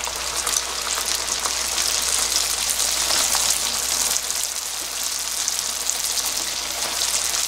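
Kkwabaegi twisted doughnut dough deep-frying in a small pan of hot oil, with the dough still pale and just put in. It makes a steady sizzle thick with fine crackling bubbles.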